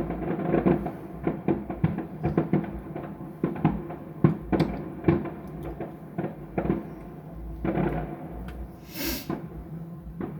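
Fireworks bursting in the sky: a quick run of bangs and crackles, thinning out in the second half, with a short hiss about nine seconds in.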